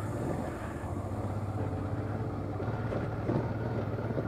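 Honda Transalp motorcycle engine running steadily at low speed on a gravel track, with wind noise on the microphone.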